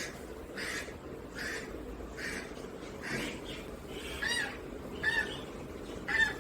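A bird calling over and over, about one short call every 0.8 seconds. From about four seconds in, the calls become clearer and more tonal.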